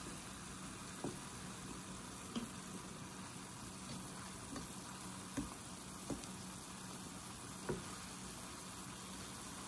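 Ground beef and onions sizzling in a pan in their own juices, without oil, as a steady hiss. A wooden spoon stirring them knocks against the pan about five times.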